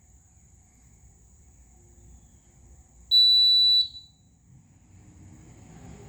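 A smoke alarm gives a single loud, high-pitched beep lasting under a second, about three seconds in, while the fire alarms are being tested.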